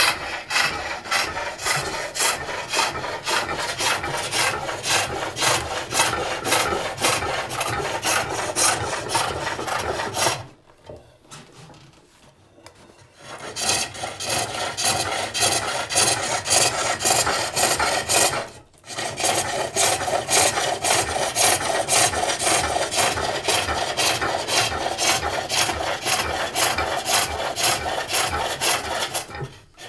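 Hook tool cutting inside a wooden box turning on a pole lathe: rhythmic scraping, shaving strokes as the work spins under the tool. The cutting stops for about three seconds about ten seconds in, and briefly again later.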